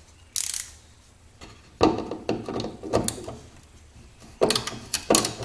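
A screwdriver turning bolts out of a sonar's mounting base, heard as several short bursts of turning and scraping.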